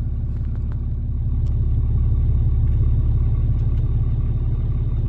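Steady low rumble of a motor vehicle's engine running, even throughout.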